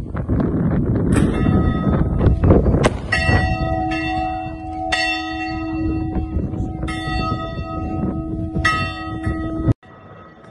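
Church bell ringing, struck about every two seconds, each stroke leaving a long ringing hum, over a rumbling noise in the first seconds. Near the end the sound cuts off abruptly to a quieter, muffled bell hum.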